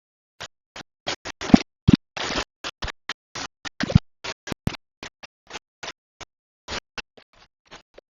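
An irregular run of short scrapes and knocks, a few with a dull thud, busiest and loudest in the first half and thinning out towards the end.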